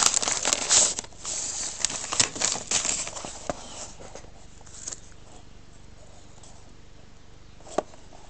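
Paper wrapping crinkling and rustling while a small cardboard box is handled, loudest in the first second and thinning out to light taps, with one sharp click near the end.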